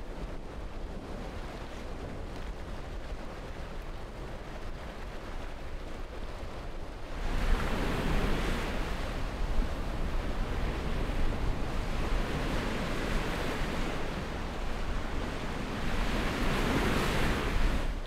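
Sea surf breaking on a rocky shore: a steady rushing wash that swells and eases every few seconds. It comes in suddenly about seven seconds in, after a quieter stretch of wind noise.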